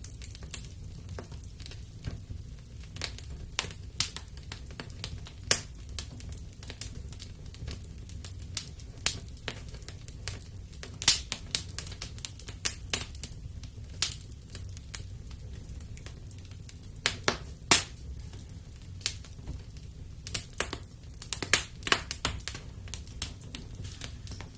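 Wood fire burning in a fireplace: irregular crackles and sharp pops, a few loud, over a low steady rumble of the flames.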